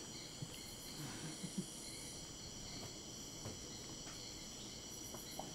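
Steady chorus of rainforest insects, several high continuous tones layered together, with a few faint soft sounds in the first couple of seconds.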